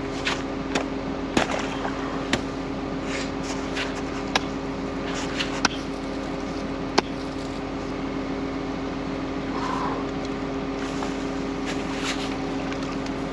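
Axe chopping into ice and frozen muck around a frozen-in sump pump: irregular sharp strikes, over the steady hum of a Case wheel loader's engine idling.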